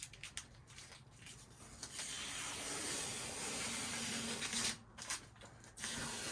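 Hands working a stick-on chrome badge onto the car's bodywork, pressing it down and pulling off its backing: a steady rubbing, rustling noise of a few seconds, with small clicks before it.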